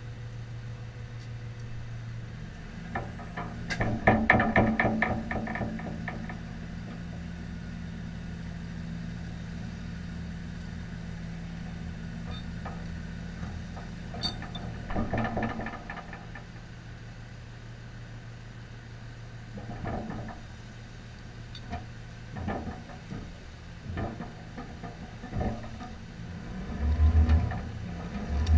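A vehicle engine idling steadily, with short bursts of rapid metallic rattling about four seconds in and again around fifteen seconds, and scattered knocks later on. A louder low engine sound comes in near the end.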